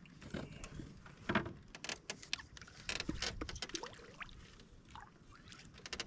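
Scattered, irregular clicks, knocks and rattles of fishing tackle being handled aboard a wooden boat, with a spinning reel in hand.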